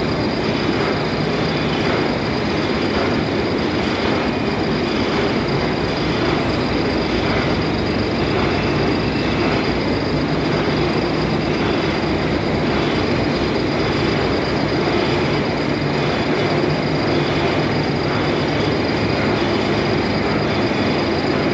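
Workshop machinery running steadily, a continuous mechanical rumble with a faint regular pulse.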